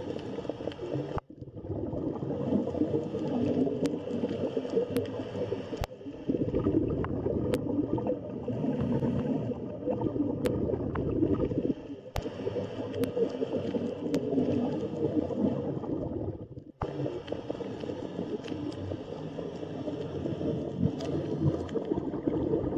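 Underwater ambience: a muffled, gurgling low rumble of water with scattered sharp clicks, breaking off abruptly for a moment a few times.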